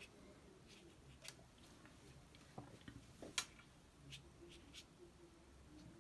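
Near silence, broken by a few faint short clicks and taps of painting tools being handled and set down; the sharpest comes about three and a half seconds in.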